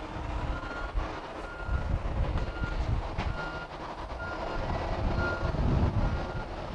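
A vehicle's reversing alarm beeping, one short high beep about every second, over a steady low rumble.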